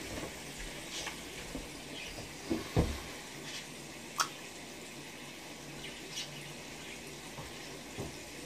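Quiet kitchen background with scattered small crackles and ticks, a dull thump nearly three seconds in and a sharp click about four seconds in.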